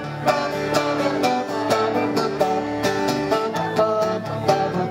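Live acoustic band playing an instrumental passage of a country-style song: plucked string instruments picking quick notes over a bass line, with no singing.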